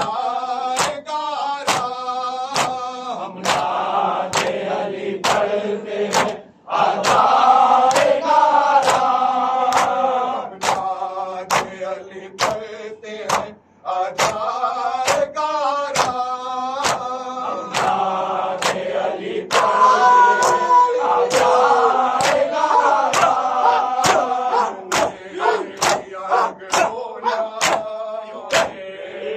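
Male voices chanting a Muharram noha (lament), with the rhythmic slaps of chest-beating (matam) about twice a second.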